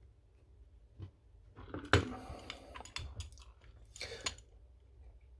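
Small metal lock pins and parts being handled and shifted around: a click about a second in, then a stretch of crackly clicking and scraping, and another short burst of clicks about four seconds in.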